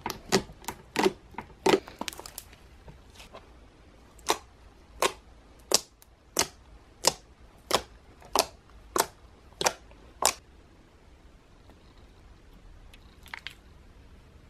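Homemade gold slime squeezed and poked by hand, giving a string of sharp pops and clicks, about one every two-thirds of a second for the first ten seconds, then only a couple of faint clicks near the end.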